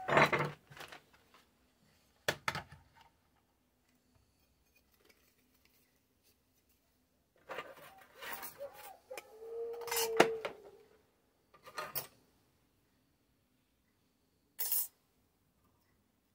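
Metal scrap parts and tools clattering and knocking on a workbench as pieces of sheet aluminium are picked up and set down on a kitchen scale: a couple of separate knocks early, a busy run of clinks and scrapes in the middle, and one short sharp click near the end.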